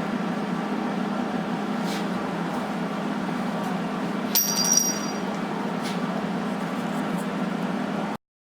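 A small metal part clinks once against a hard surface about four seconds in and rings briefly, over a steady low hum of shop background noise; the sound cuts off abruptly near the end.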